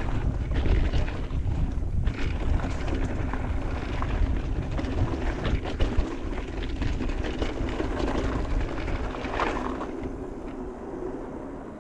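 Polygon Siskiu T6E electric mountain bike ridden fast down a dirt trail: wind buffeting the action camera's microphone, knobby tyres rolling and the bike clattering over bumps. The noise dies down near the end as the bike slows.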